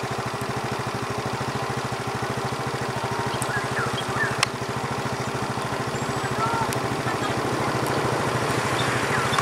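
An engine idling steadily, with an even, unchanging beat.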